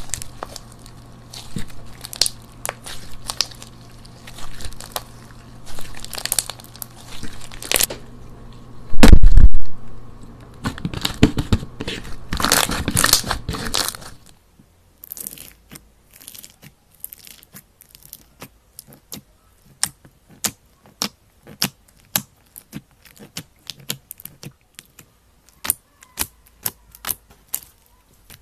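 Slime being squeezed and stretched by hand, crackling and crunching wetly, with one loud low thump about nine seconds in. About halfway through it turns quieter: a run of short, sharp little pops and clicks as bead-filled red slime is pressed and poked.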